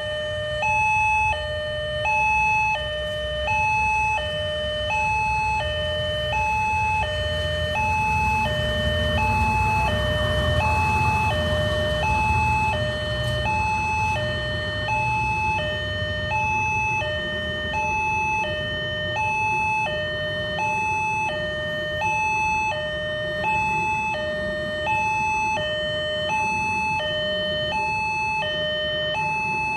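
Railway level-crossing warning alarm sounding a steady electronic two-tone signal, alternating high and low about once every one and a half seconds, warning that a train is crossing. Beneath it a passenger train runs across the crossing, its noise swelling about ten seconds in and staying under the alarm as the coaches pass.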